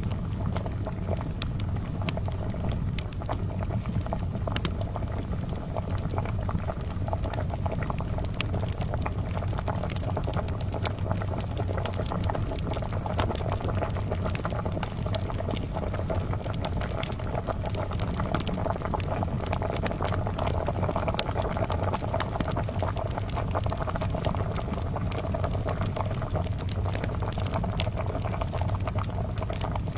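Kettle of water at a steady boil, bubbling, mixed with scattered sharp crackles and pops from a charcoal fire.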